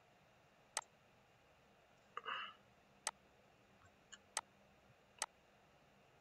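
Computer mouse button clicking, four faint sharp clicks about a second apart, with a short softer noise about two seconds in.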